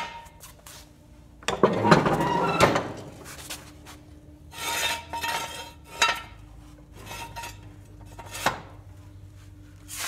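Rusty steel mower deck of a zero-turn riding mower clanking and scraping as it is tipped up and folded on its hinge: a loud clatter of metal about two seconds in, then a few lighter scrapes and knocks.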